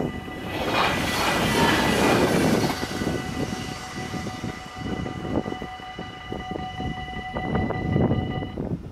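A steady horn sounding a chord of several notes over loud rumbling and rushing noise, with a swell of rushing noise in the first couple of seconds. The horn cuts off shortly before the end.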